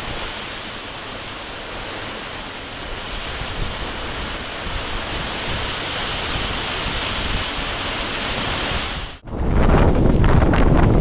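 Steady rushing noise of running water. It cuts off abruptly about nine seconds in and gives way to wind buffeting the microphone with a low rumble.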